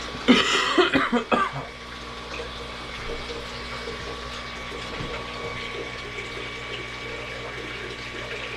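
Voxelab Aquila X2 3D printer running a print, its stepper motors and fans giving a steady hum with a few held tones. A loud cough near the start.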